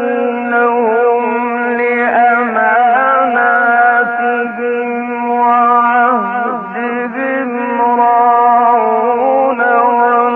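A male Quran reciter chanting in the melodic mujawwad style: one long, unbroken melismatic phrase, the pitch held and ornamented, wavering and gliding, with a brief dip about six and a half seconds in.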